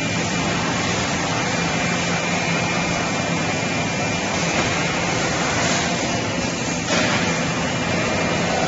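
Steady industrial hum and hiss of a circular keg-welding machine running on a factory floor, a little louder from about seven seconds in.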